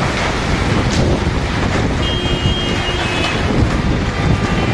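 Heavy rain pouring down steadily, with wind buffeting the microphone in a low rumble.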